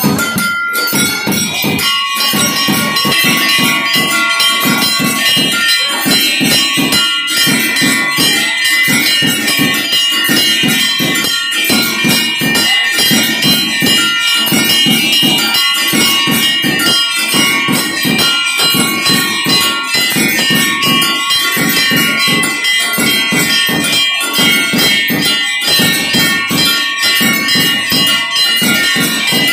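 Temple bells ringing continuously with fast, even clanging strokes during aarti, the lamp offering before the deities.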